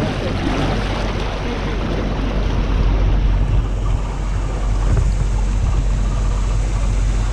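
Small self-drive motorboat under way: its engine running steadily with water rushing past the hull, and wind buffeting the microphone.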